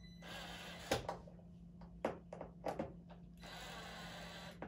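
Cordless drill driving screws into the desktop's pre-drilled holes in two short runs of about a second each, the first near the start and the second near the end, with several sharp knocks and clicks of handling between them.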